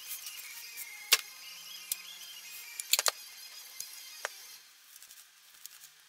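Sharp metallic clicks and knocks of hand-tool work, the loudest a little over a second in and a close pair about three seconds in, over a faint wavering high tone. It goes quieter in the last second and a half.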